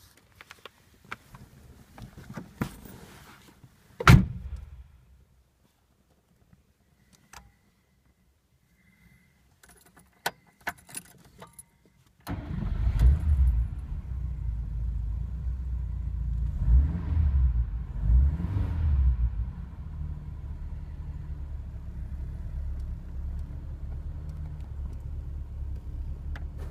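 A car door shuts with a loud thump about four seconds in, and keys click in the ignition. The Mk5 Ford Cortina Crusader's engine then starts at once about twelve seconds in, is briefly revved twice, and settles into a steady idle.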